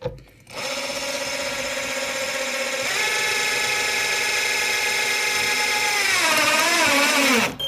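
Electric drill-driver whining steadily as it drives a Hardie screw through cement backer board into pine stud. The pitch steps up slightly a few seconds in, then sags and wavers as the motor comes under load near the end, and it stops just before the end.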